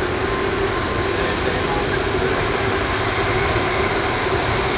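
Rolls-Royce Trent 772B turbofans of an Airbus A330-243MRTT Voyager running steadily at taxi power as the jet rolls past: a continuous engine noise with a steady hum and faint high whining tones.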